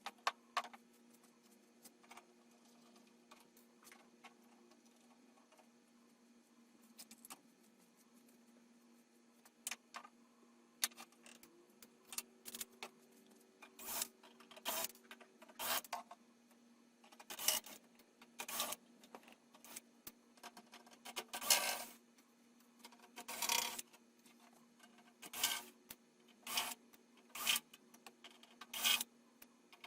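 Small screws being turned out of sheet-metal oven panels by hand with a screwdriver: scattered light clicks at first, then a run of short scraping strokes about once a second, a few of them longer.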